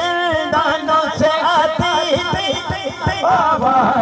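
Noha: a man's voice singing a mournful lament into a microphone, the melody drawn out with wavering, ornamented pitch. A rapid run of short low thumps keeps time underneath.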